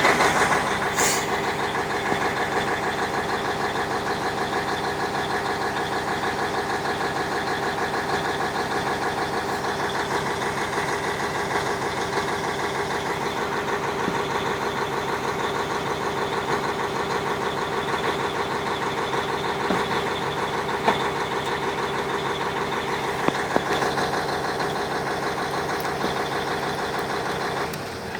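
YaMZ-6581.10 V8 turbo-diesel idling steadily with an even, rapid knock that the owner cannot explain. It is a little louder in the first second, settling to a steady idle.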